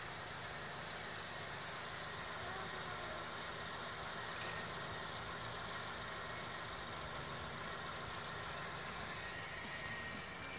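Car engine idling steadily, a low even hum under steady outdoor hiss.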